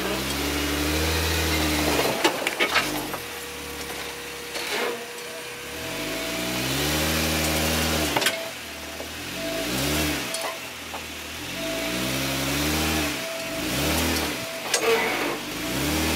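Jeep Wrangler JK's V6 engine revving up and down repeatedly, with several rises and falls in pitch and a few scattered knocks.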